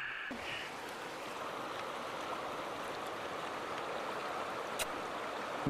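Flowing stream water, a steady even noise, with one faint click about five seconds in.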